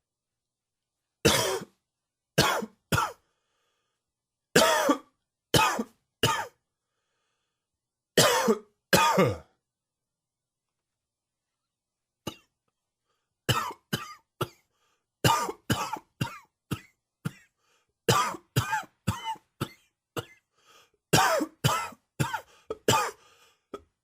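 A man coughing in an allergy-induced fit: short groups of two or three coughs with pauses between, then from about halfway through a long run of quick coughs one after another.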